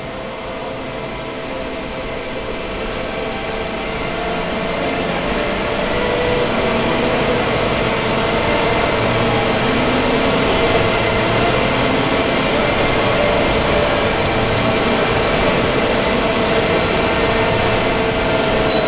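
Heavy workshop machinery running with a steady hum of a few held tones over a broad rushing noise, growing louder over the first six seconds or so and then holding steady.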